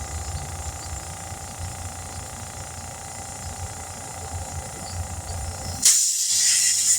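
Compressed air hissing sharply for about a second near the end, as air is let through a tire's valve stem, over a steady low rumble.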